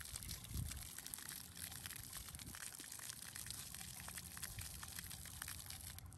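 Splash pad fountain jets spraying, with water pattering and trickling on the concrete pad. A brief low thump comes about half a second in.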